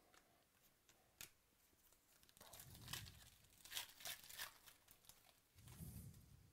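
The foil wrapper of a baseball card pack being torn open and crinkled by hand, faint, in three short bouts of ripping from about two seconds in.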